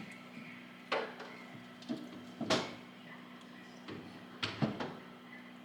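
Light knocks and clunks of things being handled and set down in a glass-fronted cabinet, about six in all, the loudest about two and a half seconds in, over a steady low hum.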